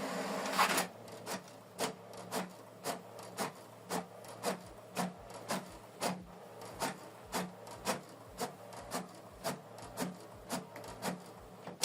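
HP Deskjet 4310 inkjet printer pulling in a sheet, then printing: the print-head carriage sweeps back and forth with a short stroke about twice a second. It is printing the second side of a manual two-sided job after the pages were reloaded.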